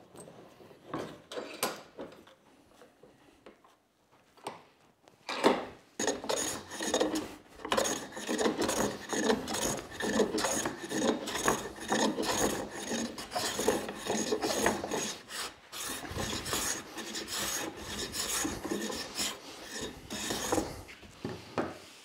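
A hand plane taking repeated strokes along the edge of a birch plywood board clamped in a bench vise, shaving the edge straight. A few knocks come first, the loudest about five seconds in; the planing starts about six seconds in and stops near the end.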